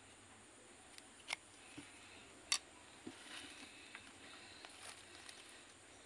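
Steel bonsai cutter snipping at the roots of a ficus bonsai: a few sharp, separate snips, the loudest about two and a half seconds in.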